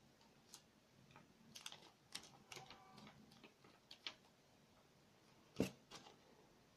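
Faint, scattered clicks and taps of a square sheet of paper being folded and creased by hand against a tabletop, the sharpest tap about a second before the end.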